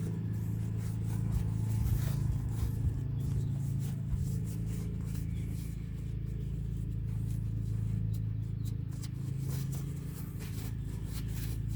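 Faint scraping and rubbing from cleaning out the rubber boot of a brake caliper slide pin, over a steady low hum.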